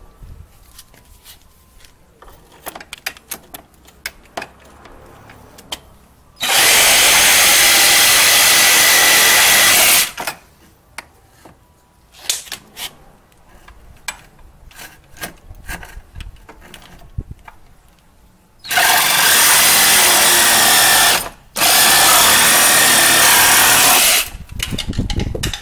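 Reciprocating saw running in three cuts through the fender flare's bracket pieces: one of about four seconds a quarter of the way in, then two of about two and a half seconds near the end with a brief stop between. Light knocks and handling clicks come between the cuts.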